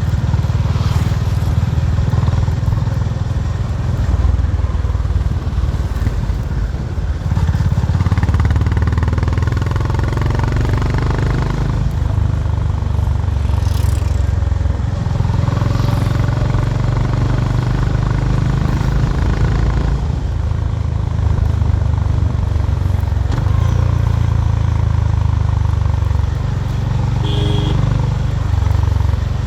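Honda H'ness CB350's 348 cc air-cooled single-cylinder engine and exhaust on the move, its deep note rising and falling with the throttle every few seconds. A short higher tone sounds briefly near the end.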